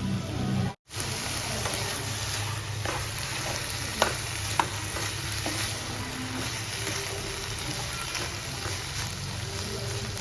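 Chicken cooking in a pot on the stove: a steady bubbling hiss with stirring, and two sharp knocks about four seconds in, like a utensil against the pot. The sound cuts out briefly under a second in.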